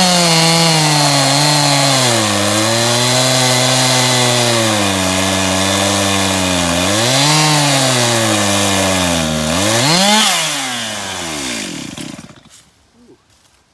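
Stihl chainsaw in an Alaskan chainsaw mill ripping lengthwise through an oak log, its engine pitch dipping and recovering under load. Near the end it revs up briefly, then winds down and stops.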